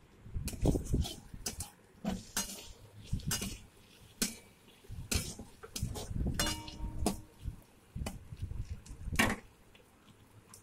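Spatula stirring and scraping tomatoes and spices around a kadai, in irregular scrapes and knocks against the pan. A brief ringing tone sounds about six and a half seconds in.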